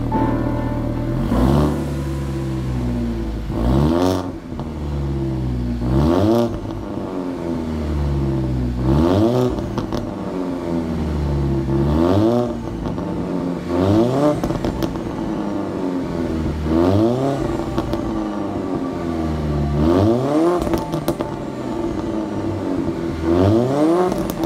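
2011 Alfa Romeo Giulietta QV's 1750 TBi turbocharged four-cylinder free-revved at a standstill through a catless downpipe, resonator-deleted mid-pipe and high-flow rear muffler. It gives about nine quick throttle blips, each rising sharply and then falling back to idle.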